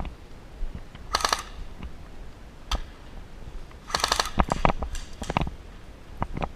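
Airsoft gun firing two short rapid bursts, about a second in and again about four seconds in, with scattered clicks and knocks between.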